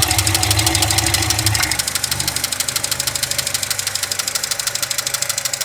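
Chevrolet Lacetti engine idling with a fast, even ticking from under the valve cover, which the owner puts down to the hydraulic lifters even though they have already been replaced. A deeper hum drops away about two seconds in.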